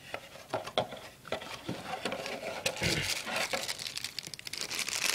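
Clear plastic packaging bag crinkling and rustling as hands handle it. Scattered light taps and clicks come first, and the crinkling grows denser about two seconds in.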